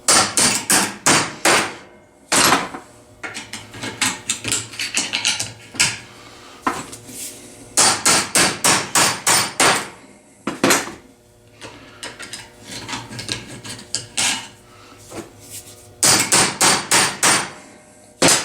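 Hammer blows on rusted vise grips pliers to break loose the rust-seized joint: three quick runs of about seven strikes each, with single blows and lighter taps between them.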